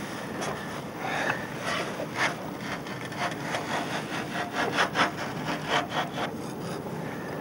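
A two-pin spanner grating against a threaded ring fitting on the metal casing of a German magnetic mine as it is worked loose: a run of short, irregular scraping strokes, coming thicker and louder about four to five seconds in, over a steady background hiss.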